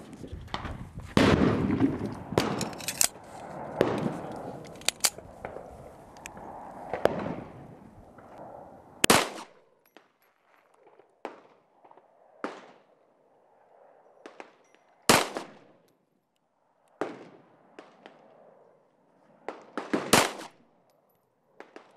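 Colt Competition 1911 pistol in 9mm firing single shots, a few seconds apart in a slow, deliberate string.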